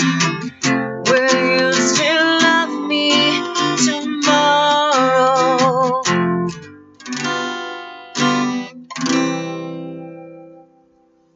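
Acoustic guitar strummed under a woman's held, wavering sung line, then a few last strums and a final chord left to ring and fade away: the close of a solo acoustic song.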